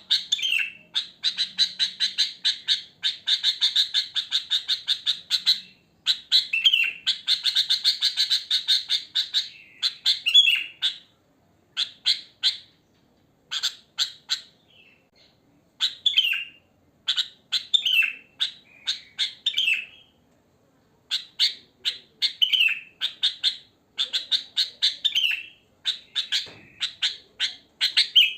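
Sooty-headed bulbul (kutilang) calling: runs of rapid, repeated chirping notes with some down-slurred whistles, broken by short pauses.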